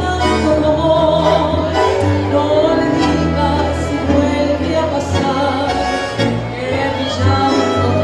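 A woman singing a tango into a microphone, accompanied by bandoneón and violin.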